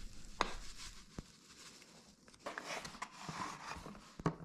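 Quiet kitchen handling as seasoned Italian breadcrumbs are set out for breading: a few light knocks of a container on the counter, and a soft rustle of crumbs about halfway through.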